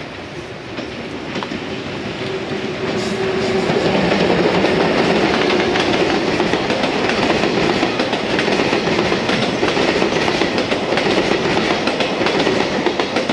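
A JR Freight EF210 electric locomotive passes at close range, followed by a long train of container wagons rolling by, their wheels clattering over the rail joints. The sound builds as the locomotive approaches and stays loud while the wagons pass.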